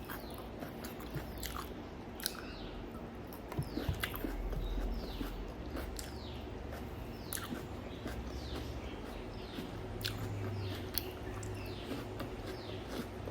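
Eating sounds: chewing and crunching food, with sharp mouth clicks scattered through. Short chirps that fall in pitch repeat in the background.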